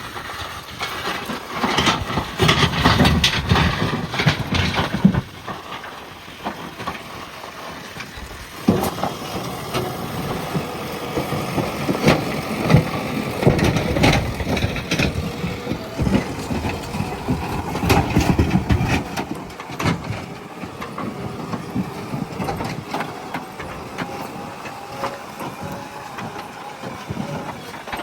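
JCB backhoe loader's diesel engine working under load, with crunching and cracking as its bucket pushes through soil and brush. The noise comes in loud stretches, easing off about five seconds in and again in the last several seconds.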